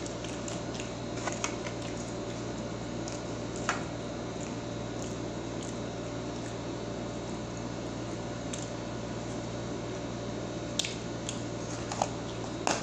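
Steady hum and hiss of a very noisy room air conditioner, with a few faint clicks and crinkles as a small plastic food packet is handled.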